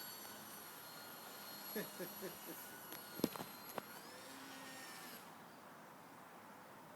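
Distant radio-controlled model airplane's motor whining steadily, its pitch rising and levelling off near the middle. A few short clicks and knocks come in between.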